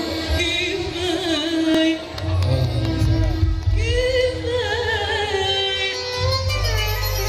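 Moroccan wedding orchestra playing, with violins held upright on the knee, keyboard and hand drums, and a singer's voice with heavy vibrato carried over a steady bass line.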